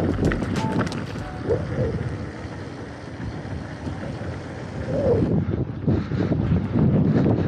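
Wind buffeting the microphone of a mountain bike rolling fast downhill, with tyre and frame rattle. In the first second there are sharp clicks of the bike clattering over loose gravel. The noise drops for a few seconds on a smoother road, then grows louder again from about five seconds in.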